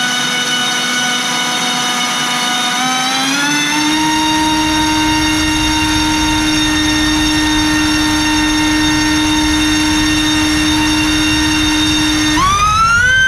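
LDpower 2305 2600kv brushless motor spinning a 5040 tri-blade propeller on a thrust stand, with a steady whine. About three seconds in the throttle steps up and the whine rises smoothly to a higher steady pitch. Near the end it climbs sharply as the throttle opens toward full.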